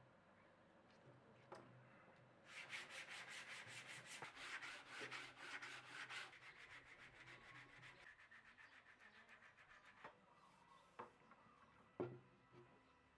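Rapid back-and-forth scraping strokes, about eight a second, like rubbing or sanding on wood. They are strong for about four seconds, then go on fainter for a few more. There are a few sharp knocks before and after.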